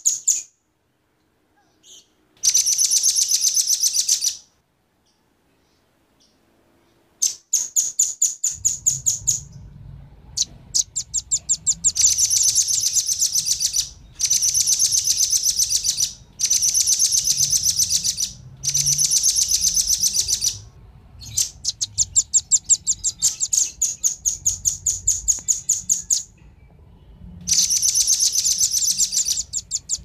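Velvet-fronted nuthatches, male and female, calling: rapid high trills of sharp repeated notes, each trill one to two seconds long, coming again and again with short gaps. A faint low rumble sits underneath from about eight seconds in.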